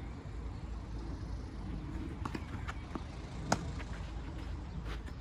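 Tennis balls knocking: a series of short sharp hits and bounces, the loudest about three and a half seconds in, over a steady low hum.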